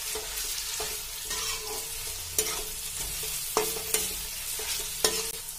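Chopped vegetables stir-frying in oil in a kadhai: a steady sizzle, with a steel spatula scraping through them and knocking sharply against the pan several times.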